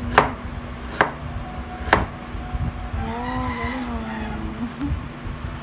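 Kitchen knife chopping down through a carrot onto a cutting board: three sharp chops about a second apart.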